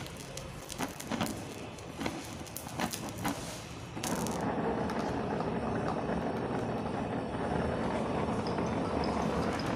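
Oxy-acetylene welding torch flame hissing and crackling with sharp pops while it plays on molten copper sheet. About four seconds in, the torch is lifted clear of the work and the open flame gives a steady, louder rush.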